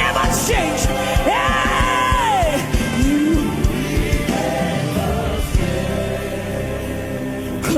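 Gospel worship music: singing voices over a band, with a steady drum beat that drops out about halfway through, leaving held chords and voices.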